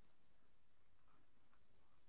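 Near silence: quiet room tone with a couple of very faint short sounds.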